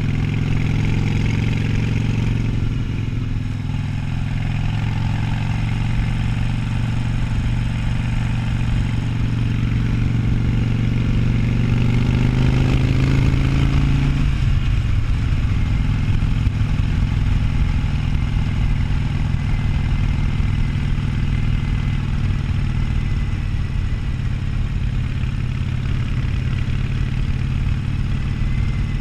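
Harley-Davidson Sportster 1200's V-twin engine running under way. Its pitch climbs steadily for about ten seconds as the bike accelerates, drops suddenly about fourteen seconds in, then holds steady at cruise.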